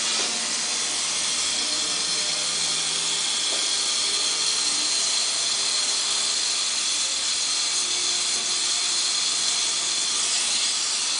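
Gas torch flame hissing steadily as it heats the refrigerant pipe beside a refrigerator's compressor during a brazing repair.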